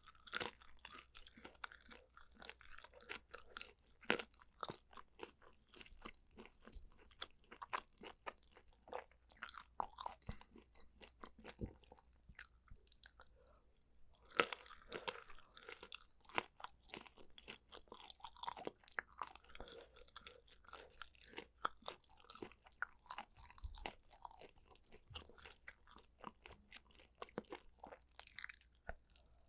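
Close-miked eating sounds: steady chewing with many sharp, crisp crunches and clicks. There is a short lull about halfway through.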